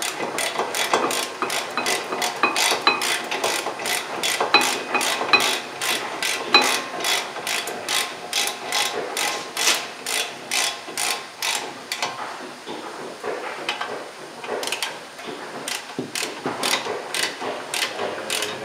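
Ratchet wrench clicking steadily, about three to four clicks a second, as it runs in the caliper mounting-bracket bolts on a front brake. The clicking grows sparser and fainter over the last several seconds.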